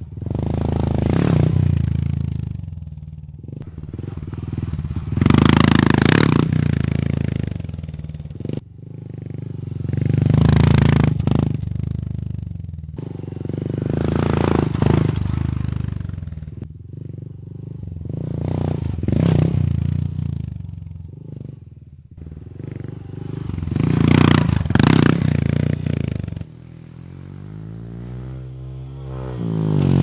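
Honda Trail 125 (CT125) single-cylinder engine running through a Yoshimura Race Cyclone straight-through full exhaust, the revs and loudness rising and falling about six times, roughly every four to five seconds.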